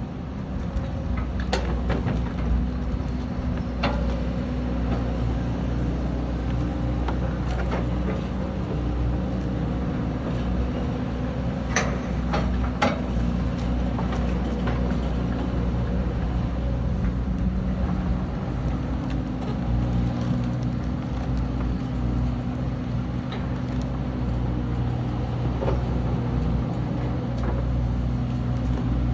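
Excavator engine running steadily under a low hum, with a few sharp knocks and clanks scattered through, several close together about halfway.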